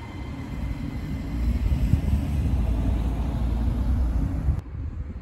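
Iyotetsu electric train passing close by, a loud low rumble that cuts off sharply about four and a half seconds in as the train clears.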